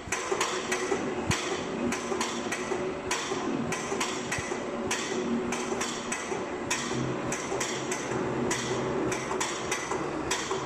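Paoloni cross-cutter texturing machine, its pneumatic piston heads knocking rapidly at an irregular rhythm against a wooden floorboard as it is fed through, stamping a random band-sawn effect into the surface, over the steady hum of the machine.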